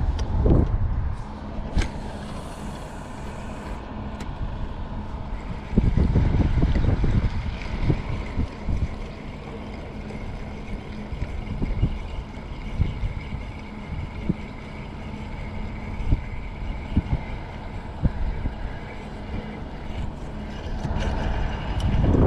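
Wind rumbling on the microphone in gusts, with scattered small clicks of handling the rod and reel.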